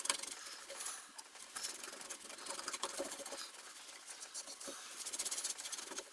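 Wrapping being unwound from a freshly glued guitar headstock and a cloth pulled off the joint: quick, irregular rustling, rubbing and light scraping of cord and fabric against the lacquered wood.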